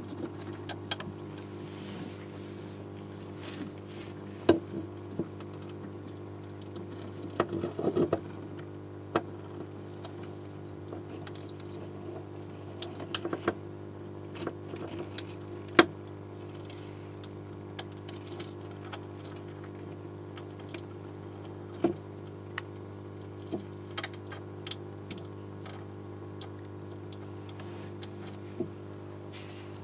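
Scattered sharp clicks and taps, with a cluster about eight seconds in, from hermit crab shells knocking against each other and the tank decor as the crabs climb. A steady low hum runs underneath.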